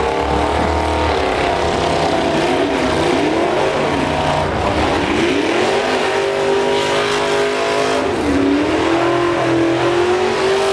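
Demolition derby truck engines revving hard. Their pitch climbs and drops as they accelerate and back off, then one holds a high, steady rev through the latter part before falling away near the end.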